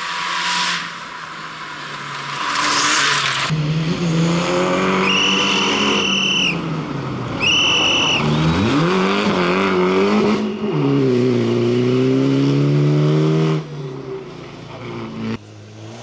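Fiat Egea rally car's turbocharged 1.4 T-Jet four-cylinder engine at full throttle on a gravel stage, the engine note climbing through the gears, dipping briefly in the corner and climbing again before the driver lifts off near the end. Midway come two short high-pitched whistling tones.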